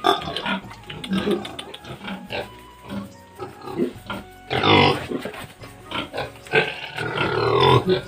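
Black pig grunting close up: a run of short, irregular grunts, the loudest about halfway through and near the end.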